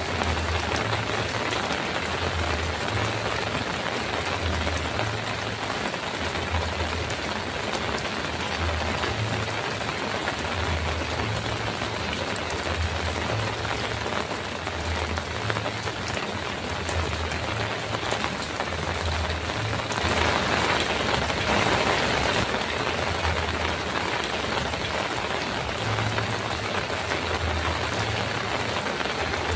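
Heavy rain falling on a metal roof as a dense, steady hiss, swelling heavier for a couple of seconds about two-thirds of the way through. A faint low throb repeats underneath about every second and a half.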